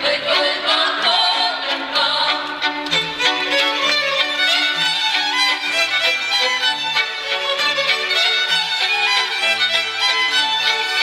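Podhale highlander folk band playing a carol tune: fiddles carry a quick melody over a low bowed bass line.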